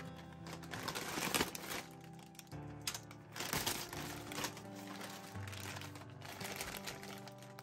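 Plastic mailer bag crinkling as it is torn open and handled, with rustling bursts about a second in and again about three seconds in, over background music.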